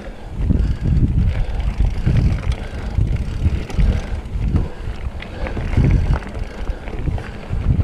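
Specialized Fuse hardtail mountain bike rolling down a dry dirt singletrack: tyres on dirt with the frame and drivetrain rattling over bumps. Uneven wind buffets the microphone throughout.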